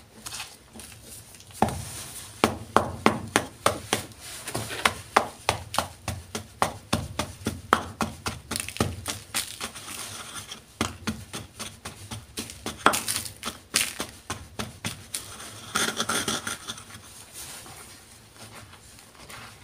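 Wooden pestle pounding powdered gym chalk in a bowl: a long run of dull, crunchy strikes, about three a second, starting about a second and a half in. Near the end the strikes stop and the sound turns to the soft rustle of hands working the powder.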